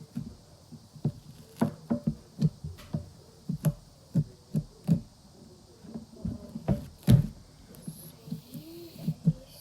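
Fluffy shaving-cream slime being kneaded and squished by hand to work in colouring: irregular soft squishes and sticky pops, about two a second, with one louder pop about seven seconds in.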